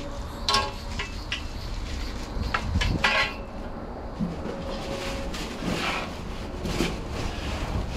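Cardboard shipping box and its packing paper being handled as the contents are unpacked: several bursts of rustling and crinkling with light knocks, over a steady low rumble of wind on the microphone.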